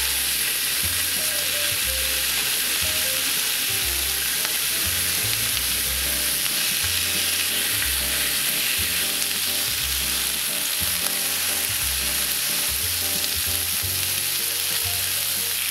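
Thin slices of Hanwoo beef brisket (upjinsal) sizzling on a hot griddle pan as more slices are laid down with chopsticks: a steady frying hiss.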